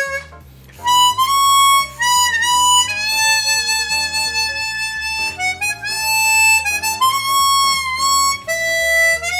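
Hohner Super 64 chromatic harmonica playing a melody of held single notes that step up and down in pitch, starting about a second in and pausing briefly about halfway through.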